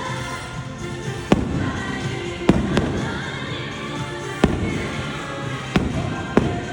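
Fireworks bursting over the show's music: about six sharp bangs at irregular intervals, each over in an instant, with the music playing steadily underneath.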